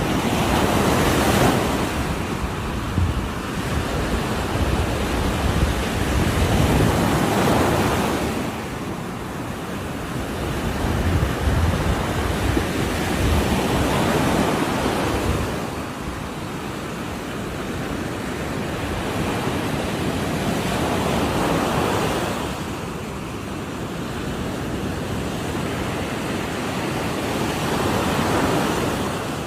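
Ocean surf crashing on the shore: five waves break in turn, each a rising rush of water that swells and washes back, with a steady hiss of surf between them.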